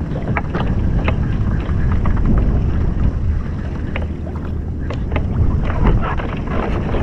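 A motorboat's engine running as it passes close to the kayak, with wind buffeting the microphone and small splashes of water.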